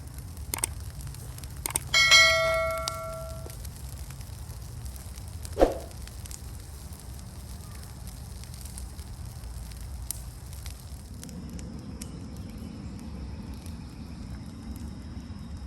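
Burning brush pile with a steady low rumble and a few sharp pops. About two seconds in, a single metallic ring is heard, like metal being struck, which fades out over a second or so.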